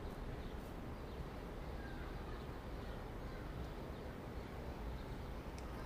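Steady low rumble of outdoor station ambience, with a few faint bird chirps.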